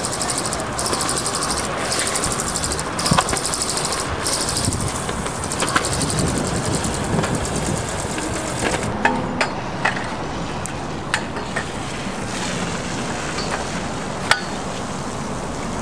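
Razor kick scooter's small hard wheels rolling on pavement with a steady hiss. After that, a run of sharp metal clicks and clinks as the scooter is locked to a bike rack with a cable lock.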